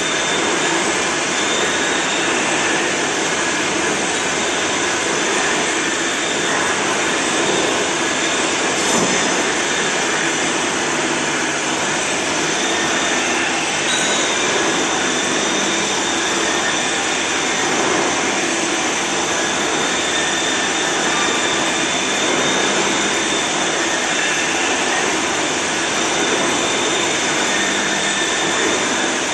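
Vertical milling machine's spindle and end mill cutting a slot in an aluminium extrusion die under flood coolant, a loud steady machining noise with a faint high whine.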